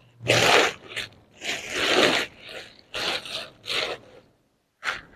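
Crinkly rustling and scraping of bags being handled, in about five separate bursts.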